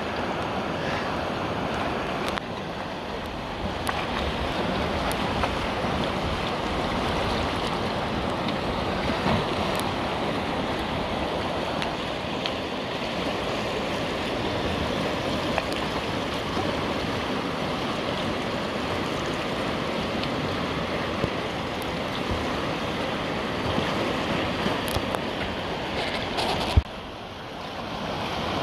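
Whitewater rapids rushing steadily through a river wave, with wind on the microphone. Near the end a sharp knock, after which the rush is briefly quieter.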